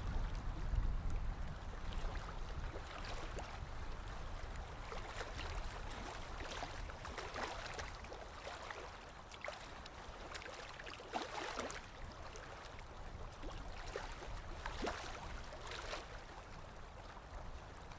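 Running water gurgling and splashing: a steady wash broken by many small, irregular splashes.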